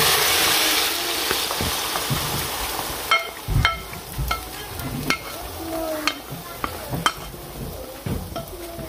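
Beaten egg sizzling loudly as it hits hot oil in a frying pan, the sizzle fading over the first few seconds as it sets. From about three seconds in, a quieter frying sizzle goes on under a series of sharp clinks and scrapes of a utensil against the pan.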